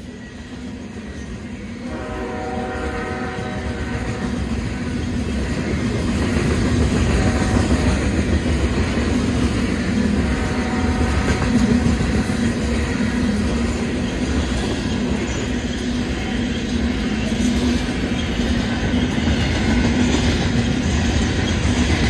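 Freight train of loaded coal cars rolling past, the wheels and cars rumbling and clattering, growing steadily louder. A train horn sounds briefly about two seconds in and again around ten seconds.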